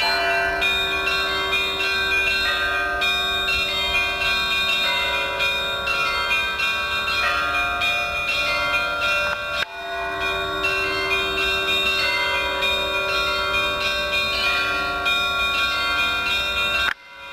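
Russian church bells ringing a full peal (zvon): several bells of different pitch struck in quick succession over a sustained lower bell, their tones overlapping and ringing on. The ringing breaks off for a moment near the middle and again near the end.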